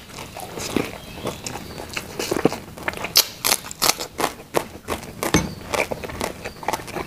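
Close-miked chewing and wet mouth sounds of a person eating rice and fried food by hand, with many irregular smacking clicks.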